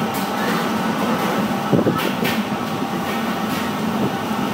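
Steady mechanical hum and rush of kitchen equipment, with a couple of faint clicks about two seconds in.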